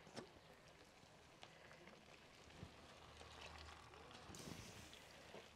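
Faint sounds: a light knock near the start. About four seconds in comes a faint sizzling hiss as thin chile liquid is poured from a blender jar into a hot clay cazuela.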